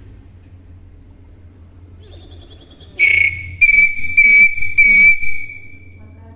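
Hill myna giving four loud, high whistles in quick succession, each held on one steady pitch, the last fading away.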